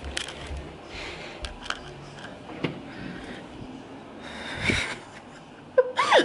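Quiet room sounds as someone creeps through a dark flat: faint footstep and rustle clicks, with a louder breathy hiss about four and a half seconds in. Near the end comes a short voice sound that swoops down in pitch.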